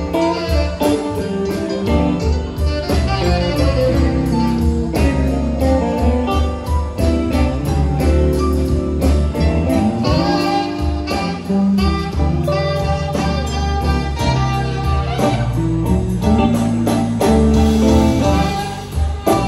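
Live blues band playing: electric guitars and saxophone over drums with a steady beat.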